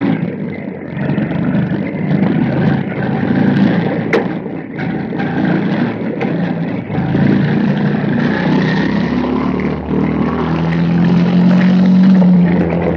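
Quarter midget race cars' small single-cylinder 160cc engines running at race speed, their pitch rising and falling as they go around the track. From a little after two-thirds of the way in, one engine holds a strong, steady note.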